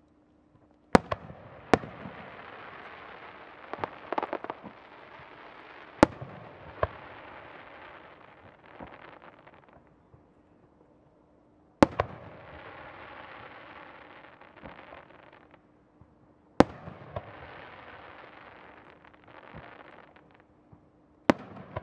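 Aerial firework shells bursting, a sharp bang roughly every five seconds. Each bang is followed by several seconds of crackling sparks that slowly die away. The shells are made to recreate the changing sparks of a senko hanabi sparkler until it goes out.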